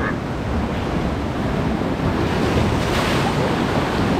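Sea surf washing and foaming over and between shoreline boulders, with wind buffeting the microphone. A wave surges in more loudly about three seconds in.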